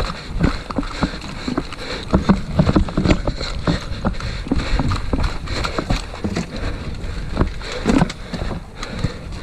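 Footsteps of a person running over dirt, twigs and leaf litter, with gear and the body-worn camera jostling: a run of irregular crunches and knocks over a low rumble.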